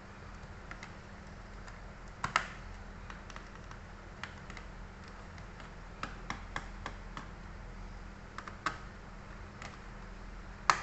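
Irregular small clicks and taps of a screwdriver and metal parts while undoing the four screws over a laptop's processor. A few louder clicks come about two seconds in and near the end, over a faint low steady hum.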